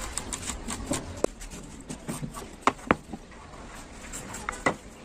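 Irregular taps and knocks, a few of them sharper and louder than the rest.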